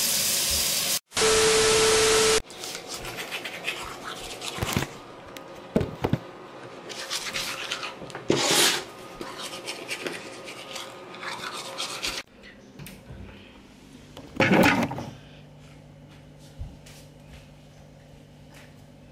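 A manual toothbrush scrubbing teeth in quick back-and-forth strokes for about ten seconds. Before it comes a brief loud stretch of rushing noise with a steady tone, and after it a quiet steady hum broken by one short loud burst.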